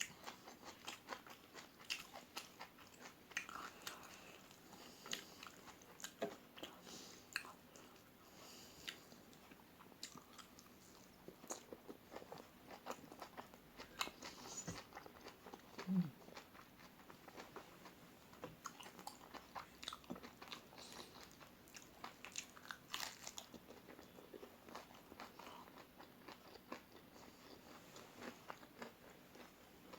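Close-miked chewing and biting of crispy fried omelette, with irregular crunches and wet mouth clicks. About halfway through, a short low hum-like sound is the loudest moment.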